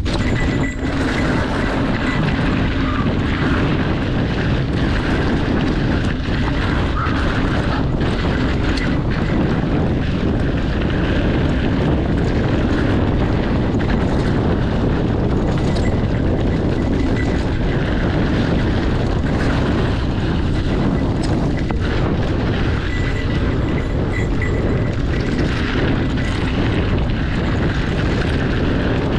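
Steady wind rumble on the microphone over the tyre noise of a mountain bike rolling fast down a dirt trail, with occasional light clicks and rattles.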